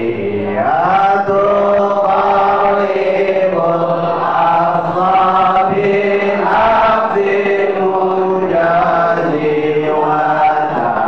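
Group of men chanting together in unison, a slow melodic Islamic devotional chant with long held notes that glide up and down.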